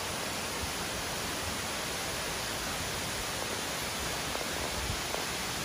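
Steady, even hiss of falling water from a waterfall, with no change in level.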